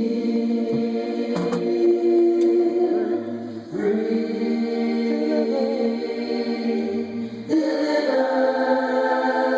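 A vocal group singing held chords in harmony. The chord changes about four seconds in and again near the end.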